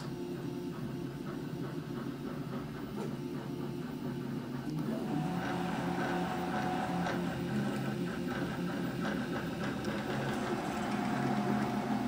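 Prusa i3 3D printer running a print: its stepper motors whine in shifting pitches as the head moves, over the steady whir of its cooling fan. It gets louder about five seconds in.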